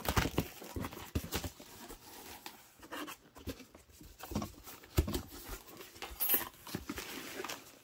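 Plastic wrap and packing tape crinkling and tearing as a cardboard box is cut and opened, busiest in the first second. After that come sparse rustles and light taps of the cardboard flaps and foam packing peanuts.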